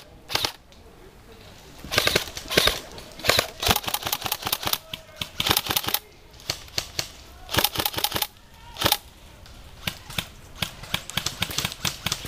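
Airsoft rifles firing: several short bursts of rapid shots, with a looser string of separate shots near the end.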